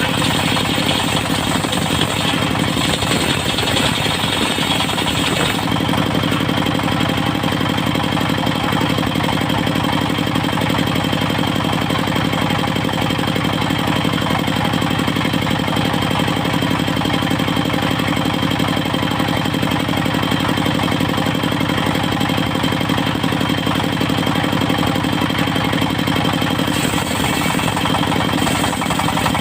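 Engine driving a portable circular-saw sawmill, running steadily. A higher hiss joins it for the first five or so seconds and again briefly near the end.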